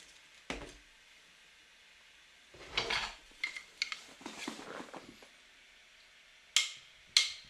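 Light handling noise of small hard objects: a sharp click about half a second in, a stretch of rubbing and scraping with small knocks in the middle, and two more clicks near the end.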